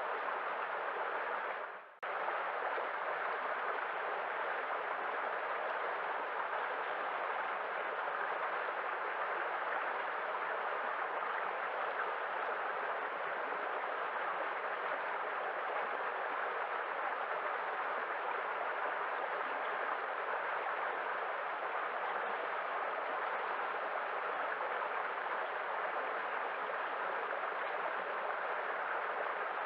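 Waterfall: a steady, even rush of falling water. About two seconds in, the sound fades out briefly and then cuts straight back in.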